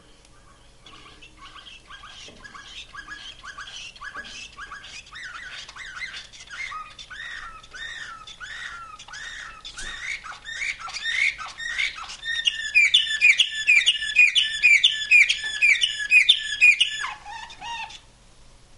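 Caged canary of the slavujar type, bred and trained for nightingale-style song, singing one long song made of phrases of rapidly repeated notes. The song builds in loudness, peaks in a loud fast trill near the end and closes with a falling note.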